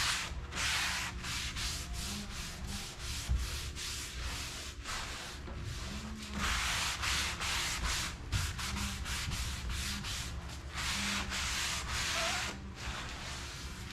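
Paper towel rubbing aged wood accelerator into the bare wood of a dresser, in repeated back-and-forth strokes, some short and a few longer.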